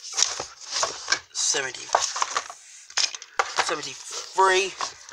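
Hardback books handled along a packed shelf: a quick run of clacks and rustles as the hard covers knock and slide against each other.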